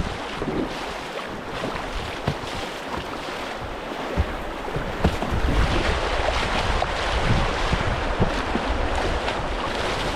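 Rushing river water with wind buffeting the microphone, and irregular splashes of kayak paddle strokes.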